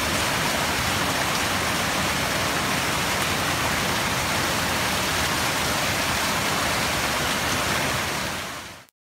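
Steady rushing of running water, as from a nearby creek or cascade, cutting off abruptly near the end.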